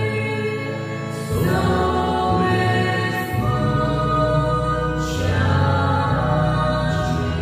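Epic orchestral background music with choir voices over a steady low bass. It grows fuller about a second in, with a bright swell roughly every two seconds.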